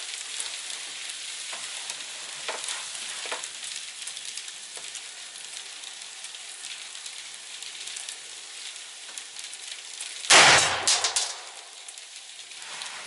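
A single shot from a Mossberg Patriot bolt-action rifle in .308 Winchester about ten seconds in, sharp and loud, with an echo lasting about a second. Before the shot there is a steady hiss, with a couple of faint clicks.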